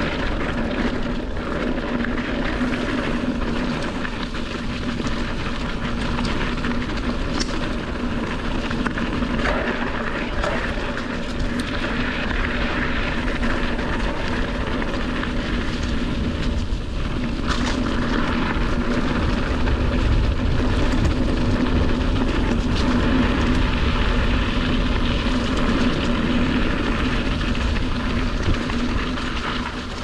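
Steady rushing and rumble of a mountain bike being ridden along a dirt trail: wind on the microphone and tyre noise, getting a little louder about two-thirds of the way through.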